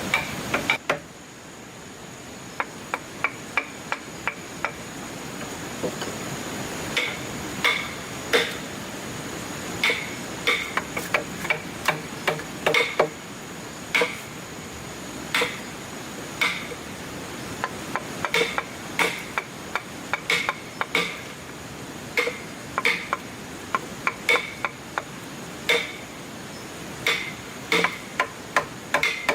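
Hammer strikes in an irregular series, roughly one or two a second, each a sharp knock with a brief ring.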